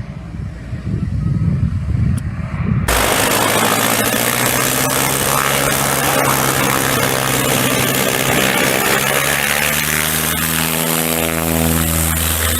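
Aircraft engine noise, cutting abruptly to a steady engine drone about three seconds in; near the end the pitch of the drone drops as the aircraft passes.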